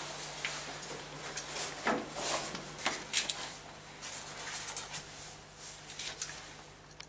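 Hands handling a black plastic tube unit on a timber aquarium stand: scattered light clicks, knocks and rustles of plastic against plastic and wood as it is fitted into its clamp.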